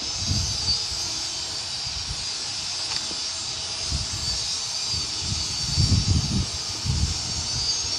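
Welding arc hissing and crackling steadily, with low wind buffeting on the microphone several times.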